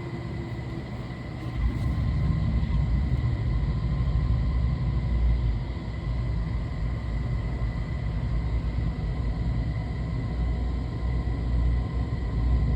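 Buffalo No. 66BX grinder running with a steady low rumble and a faint steady whine; the rumble grows louder about a second and a half in.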